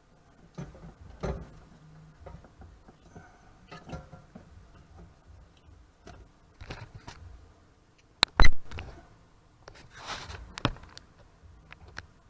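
Handling noise from a car radio amplifier and its plastic mounting parts: scattered clicks and knocks, with a sharp double knock about eight seconds in and a brief scrape about ten seconds in.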